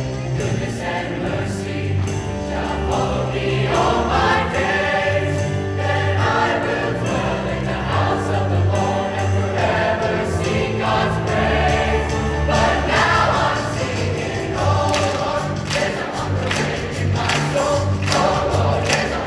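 Large mixed choir singing an upbeat song in harmony, with sustained deep bass notes underneath. From about two-thirds of the way in, a beat of sharp percussive hits joins the singing.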